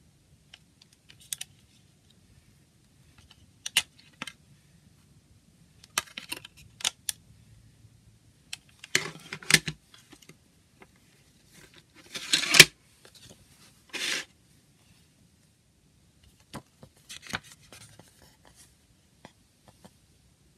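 A plastic CD jewel case and its paper booklet being handled: scattered clicks and taps, with short scrapes and rustles as the booklet is worked out of the case and opened. The loudest is a scrape ending in a sharp click about twelve and a half seconds in.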